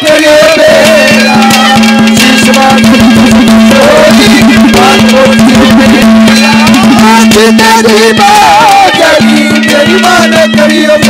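Live Haryanvi ragni folk music: hand drums keep up a busy beat while a wind instrument plays a bending, ornamented melody over a steady held low note.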